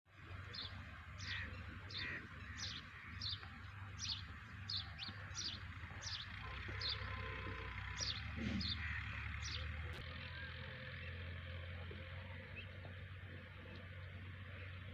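A bird calling outdoors with short, sharp, high chirps repeated every half second or so, stopping about nine and a half seconds in, over a steady low rumble of background noise.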